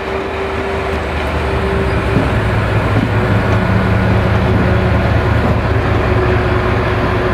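Class 68 diesel-electric locomotive passing close by with its Caterpillar V16 engine running. A steady low drone with a few held tones grows louder as the locomotive draws near.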